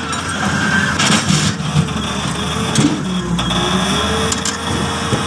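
Excavator's diesel engine running under load, with a hydraulic whine that dips and rises again, and a few sharp clanks as the steel sheet piles are handled.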